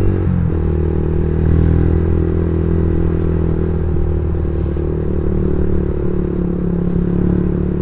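Yamaha Vixion motorcycle's single-cylinder four-stroke engine running steadily while riding along at a constant speed, heard from the rider's seat with wind and road noise.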